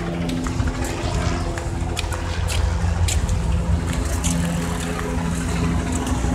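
Street traffic: a vehicle engine running with a steady, pitched hum that fades out and returns, over a low rumble, with a few short clicks.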